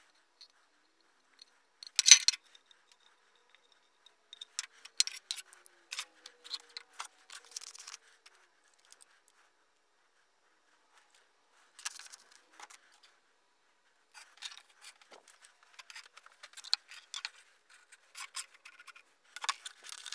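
Felt-tip marker scratching in short strokes as it writes on a clear plastic bowl, in two spells of writing, with a sharp knock about two seconds in.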